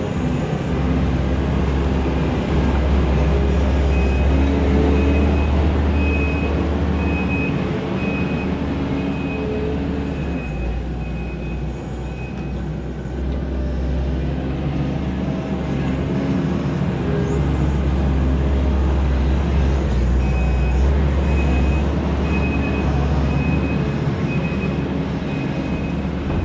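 Kubota SVL90-2 compact track loader's diesel engine running under load, its level rising and easing as it works. Its backup alarm beeps steadily while it reverses, for several seconds around the middle of the first half and again near the end.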